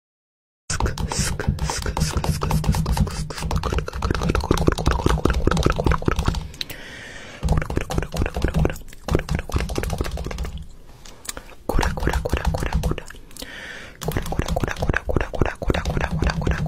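A fast run of percussive clicks and smacks over a deep bass, in a beatbox-like rhythm broken by a few short pauses. It starts after a brief moment of silence.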